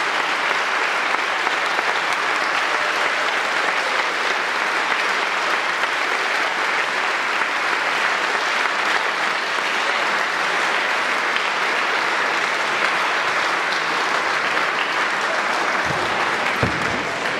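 Audience applauding steadily, with a few low thuds near the end.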